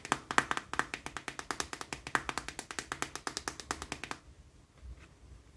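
A fast, even run of small clicks, about ten a second, stopping about four seconds in.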